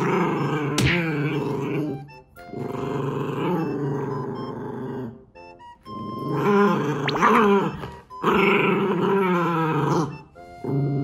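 An adult black Shiba Inu and a Shiba puppy growling at each other in play, in about five long bouts with short pauses between them, the puppy copying the older dog's growl.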